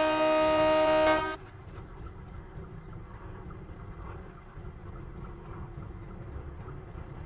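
Train horn sounding a steady chord of several tones, cutting off abruptly about a second in, followed by a quieter, steady low rumble.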